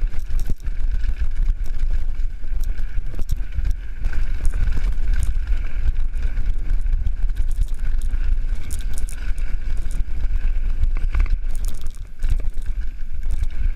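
Heavy wind buffeting on the microphone over the rattle and clatter of a 2015 Cannondale Jekyll full-suspension mountain bike riding fast down a rough downhill trail. A faint steady high whine runs underneath.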